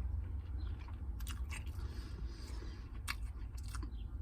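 Close-up chewing and biting of a cheeseburger dipped in an Oreo milkshake: wet mouth sounds with a few sharp smacking clicks.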